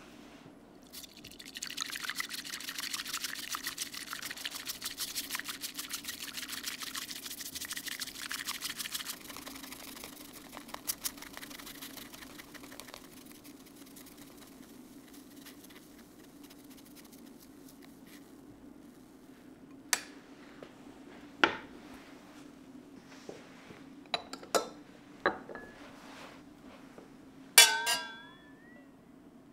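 Bamboo tea whisk (chasen) briskly whisking matcha in a ceramic bowl: a fast, scratchy frothing for about eight seconds that then slows and fades. Later come a few soft knocks and, near the end, a sharp clink that rings on briefly, over a steady low hum.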